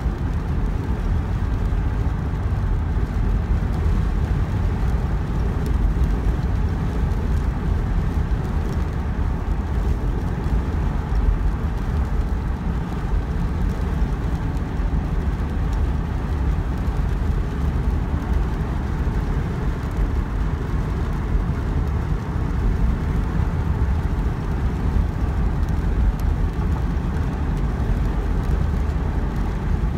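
Steady road noise heard from inside a moving car: a low rumble with tyre noise from the wet pavement.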